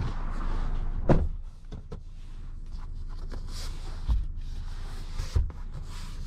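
A sharp click about a second in, then a few light knocks and two low thumps later on, over a steady low rumble: handling noises from the fittings of a parked 2022 Lexus NX 350.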